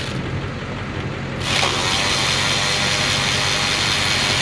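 A power tool at work on the valve-cover bolts of a 6.0 Powerstroke diesel, giving a hissing run that starts suddenly about a second and a half in and lasts about three seconds, over a steady low hum.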